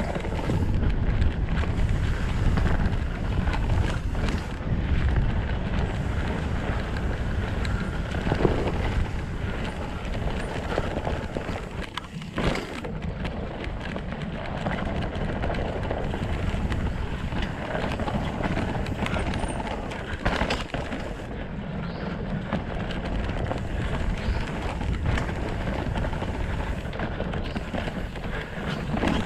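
Mountain bike ridden fast down a dirt singletrack: steady wind buffeting on the camera microphone, tyre rumble over the dirt, and scattered clatters and knocks from the bike over bumps.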